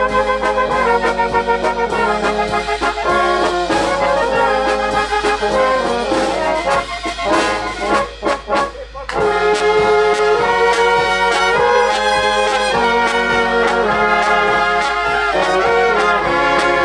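Brass band music: trumpets and trombones playing a tune over a drum beat. The horns drop out briefly about halfway through, leaving a few drum strokes, then come back in.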